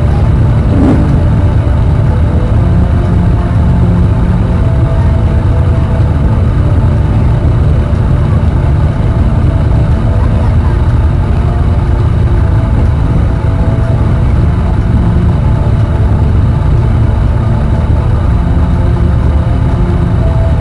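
Motorcycle engines idling at a standstill, a steady low rumble.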